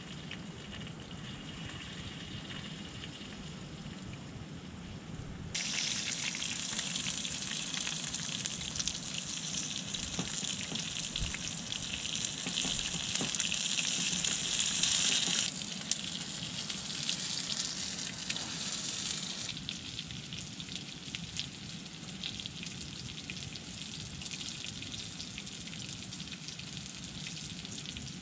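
Chopped vegetables sizzling in a hot metal tray on a wood stove: a steady crackling hiss. It starts softer, jumps abruptly louder about six seconds in, and drops back in steps later on.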